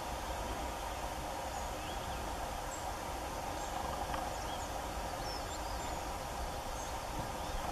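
Outdoor ambience: a steady hiss over a low rumble, with faint, short high chirps scattered throughout.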